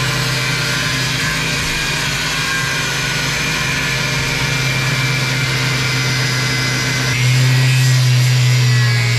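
Corded angle grinder with a cutting wheel running steadily while cutting into a fiberglass boat hull. It gets louder about seven seconds in.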